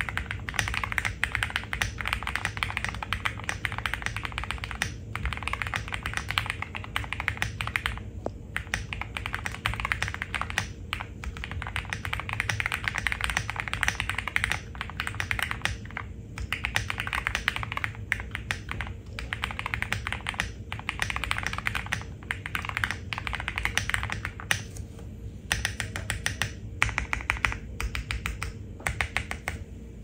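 Typing on a Haven65 mechanical keyboard fitted with Cherry Hyperglide Black linear switches: a fast, continuous run of keystroke clacks, broken by short pauses every few seconds.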